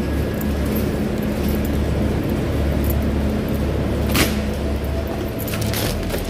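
Loaded metal stock cart rolling over a concrete warehouse floor: a steady low rumble from the casters with the metal frame rattling. About four seconds in there is a sharp slap as the cart pushes through a plastic strip curtain, followed by a few lighter clicks.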